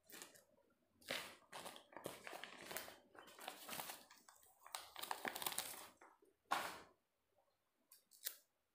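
Sheet of stickers crinkling and rustling as hands handle it, in irregular bursts, then a pause and one short rustle near the end.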